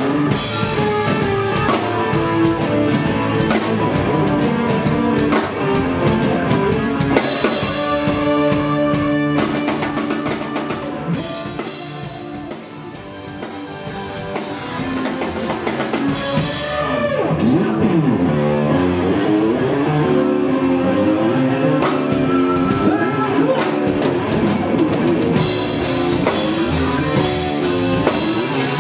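Live rock band playing: drum kit and electric guitars. The music drops quieter about halfway through, then builds back up to full band.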